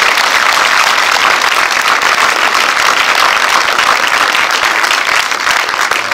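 Audience and cast applauding: steady, dense clapping.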